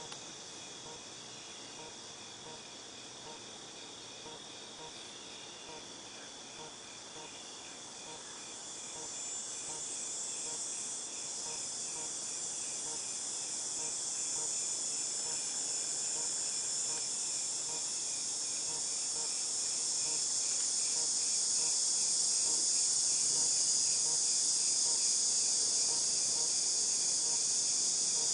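Cicadas droning in chorus, a steady high-pitched buzz that swells louder from about eight seconds in and then holds. A fainter, regular pulsing, a few pulses a second, runs beneath it.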